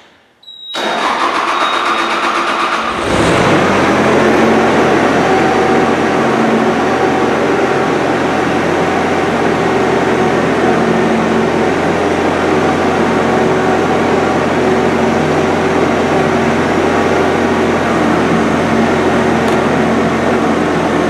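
Skid steer's diesel engine running. It comes up to a higher, louder speed about three seconds in and then holds steady, as the machine is driven up to hook onto a bucket.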